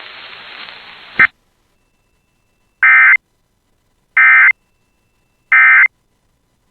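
Emergency Alert System end-of-message: three short, identical bursts of buzzy SAME digital data tones about 1.3 seconds apart, signalling the end of the alert. Before them, a hiss from the broadcast audio cuts off with a click about a second in.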